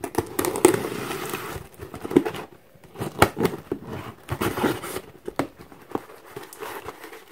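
A blade slitting the clear packing tape along the seam of a cardboard box, with scraping and tearing, then after about three seconds the cardboard flaps being pulled open in a few crinkly rustles.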